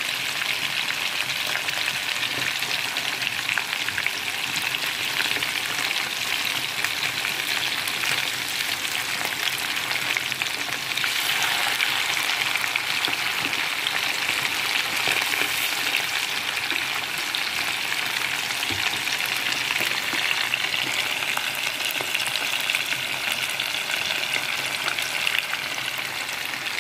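Pieces of spice-braised fish deep-frying in a pan of bubbling hot oil, a steady dense crackle and sizzle as they fry until crisp, turned now and then with a silicone spatula.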